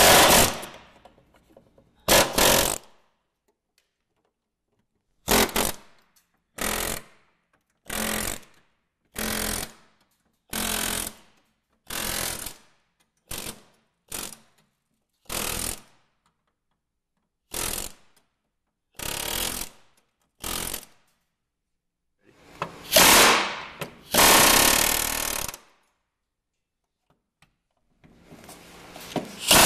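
Pneumatic air chisel hammering in more than a dozen short bursts, each under a second, as its chisel blade shears the heads off the rivets holding a snowmobile's running board frame; the last few bursts, near the end, run longer.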